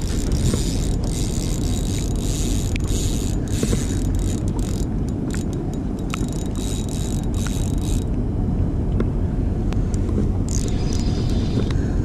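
Fishing reel being wound in during a fight with a fish, its mechanism clicking and scraping over a steady low rumble; the clicking stops about eight seconds in.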